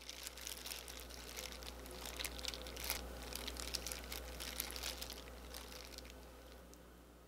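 A hand in a thin plastic food-prep glove handling slick, oil-dressed acorn jelly strips on a plate: soft crinkling of the glove with wet, sticky squishing, a dense run of small irregular sounds that fades out near the end.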